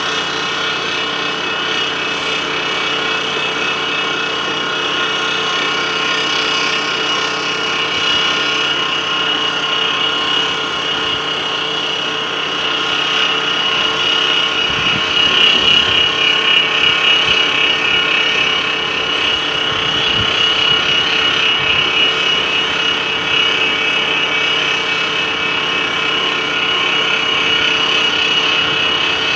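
Heavy earthmoving machinery running steadily: diesel engine noise with a high, steady whine, swelling a little about halfway through, with a few low thuds.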